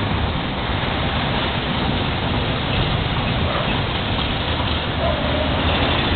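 Jeepney running along the road, heard from inside: a steady engine drone with road and wind noise.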